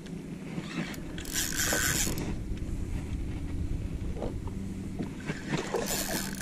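Spinning reel being cranked while fighting a redfish on a bent rod, its gears turning, with two short bursts of hiss, about a second and a half in and near the end.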